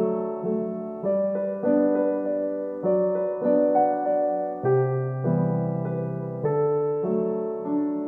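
Slow piano music: single notes and chords struck every half second to a second, each ringing and fading away.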